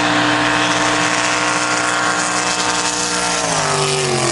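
Jet boat engine running hard at speed, a steady high engine note that drops in pitch near the end as the boat comes past close.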